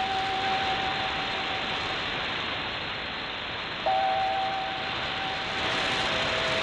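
Shortwave AM reception of the Voice of Korea on 15245 kHz: long held musical notes half-buried in heavy static hiss, with a new pair of notes coming in abruptly about four seconds in.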